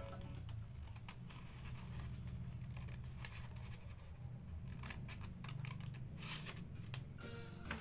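A sheet of paper being handled and creased by hand, with scattered crinkles and scrapes over a steady low hum.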